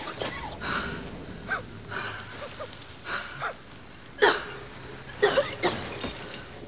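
A person breathing hard, gasping and panting with short strained vocal noises. The sharpest, loudest gasps come about four seconds in and twice more about a second later.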